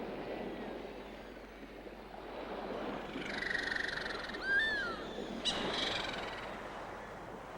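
Seabirds calling at a nesting colony, over a steady wash of surf. There are a few buzzy, wavering calls a few seconds in, then a short sweeping call and a sharp call close together in the middle.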